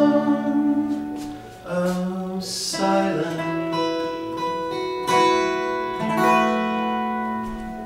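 Closing bars of a song for voice and acoustic guitar: a last held sung note dies away about a second and a half in, then a few strummed guitar chords ring out and fade.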